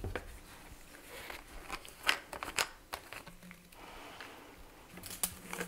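Light, sparse clicks and knocks as a plastic epoxy jug and cup are handled and set down on a workbench. A faint low hum comes in about three seconds in.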